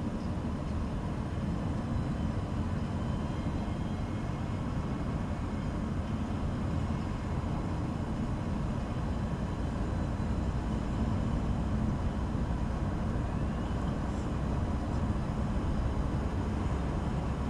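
Steady driving noise from a car with a 1.7 CDTI diesel engine: engine drone and tyre and road rumble, unbroken and heaviest in the low end.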